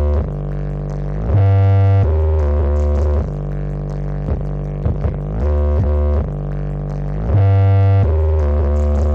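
Loud electronic music with a deep, droning bass line, played through a towering Brewog Audio speaker stack. A heavier bass blast swells out twice, about a second and a half in and again near the end.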